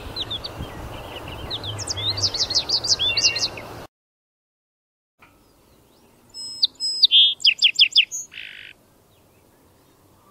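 Small birds chirping in quick, repeated falling notes over a steady outdoor background noise, which cuts off suddenly a few seconds in. After a brief silence, a second run of rapid chirps comes in over a quieter background, then fades to faint ambience.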